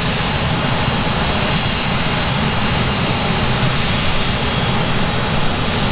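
Airbus A380-800's four turbofan engines running at low thrust as it taxis: a steady, loud jet noise with a thin high whine over it.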